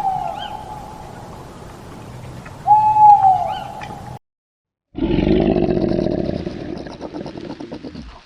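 Animal calls from two clips. First come two steady hoots, each ending in a short drop in pitch, about three seconds apart. After a brief break there is a loud, rough roar lasting about three seconds that fades out.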